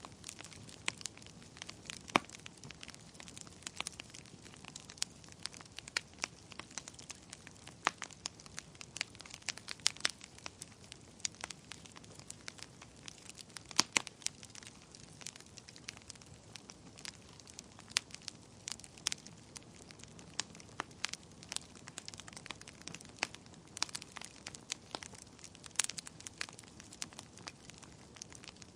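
Wood fire burning in a fireplace, crackling and popping irregularly over a soft steady hiss, with a few louder pops.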